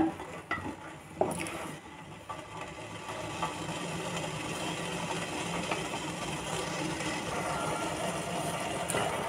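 Sugar syrup boiling in a steel pot, a steady low bubbling hiss, with a couple of light knocks from a wooden spatula in the first second or so.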